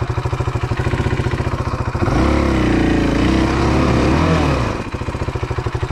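KTM 500 EXC-F single-cylinder four-stroke dirt bike engine throbbing at low revs. About two seconds in it is revved up and eased back down, then returns to the low, pulsing throb as the rider tries to get going again on a steep, slippery climb.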